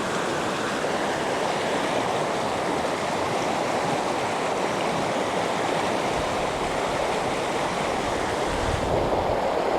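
River water flowing steadily, a constant rushing noise.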